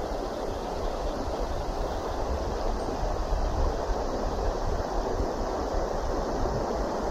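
Shallow stream flowing steadily over a cobble bed, a continuous rushing of water with an uneven low rumble beneath it.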